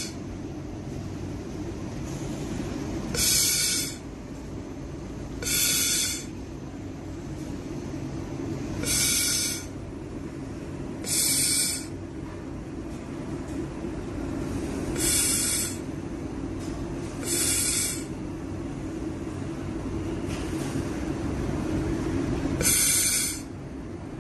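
Energy-storage (capacitor-discharge) welding machine running through repeated weld cycles: seven short, loud hissing bursts a few seconds apart over a steady machine hum.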